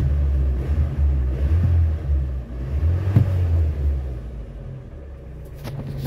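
1984 Toyota 4Runner's carbureted 22R four-cylinder engine revved by hand from the accelerator pedal: a louder low rumble for about four seconds, then it drops back to idle.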